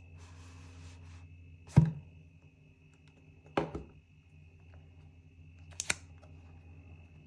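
Apple Pencil packaging being handled: a short rustle, then a sharp knock, a second knock about two seconds later, and a quick double click near the end, over a steady low hum.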